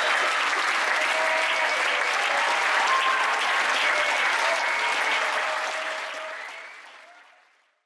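Live audience applauding at the end of a show, fading out over the last two seconds.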